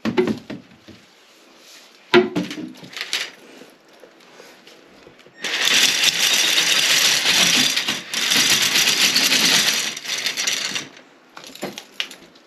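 Toilet auger being cranked: the metal cable rattles and scrapes inside its tube in two runs of a few seconds each, with a short pause between, as it is fed into the toilet to clear a suspected blockage behind a weak flush. A few handling clicks and knocks come before it.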